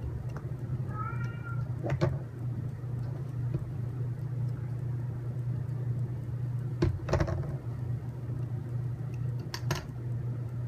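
A cat meows once, a short bending call about a second in. Several sharp clicks and knocks of small parts being handled follow, over a steady low hum.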